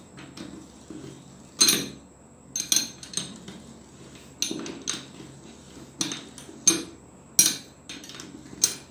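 Steel combination spanner clinking against a Honda CD motorcycle front fork tube as it is turned and repositioned on the fork's top fitting: a series of sharp metallic clinks at irregular intervals.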